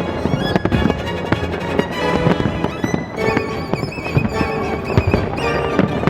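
Classical violin music over a dense, continuous barrage of fireworks bangs and crackles.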